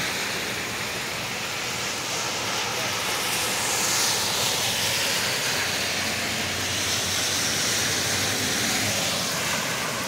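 Heavy rain falling steadily on a street and pavement, an even hiss. About four seconds in, a car's tyres on the wet road swell and fade as it passes.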